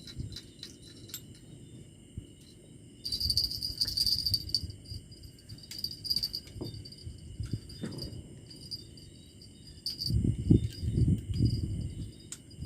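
Insects, cricket-like, chirping steadily, with a louder, pulsing chirp joining about three seconds in. Low thumps and knocks come near the end.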